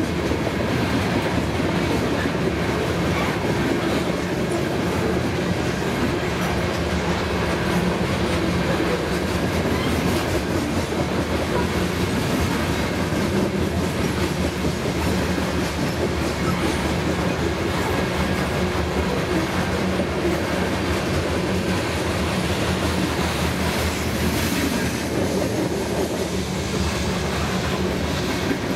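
Loaded covered hopper cars of a freight train rolling steadily past, their steel wheels rumbling and clicking on the rails.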